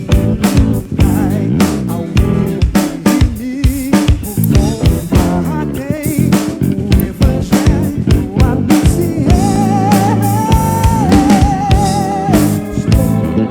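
Live soul band playing with drum kit, bass guitar and electric guitar. About nine seconds in, a lead line holds one long note with vibrato for about three seconds.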